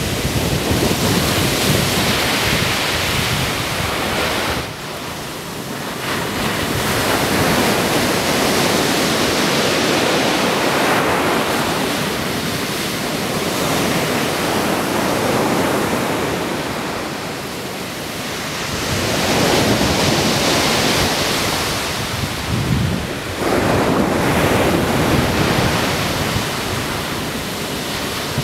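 Pacific surf breaking on the beach in a storm, swelling and easing as each wave comes in about every five or six seconds, with strong wind buffeting the microphone.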